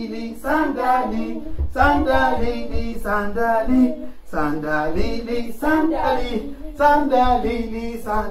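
A man and children singing a chant together in a steady rhythm.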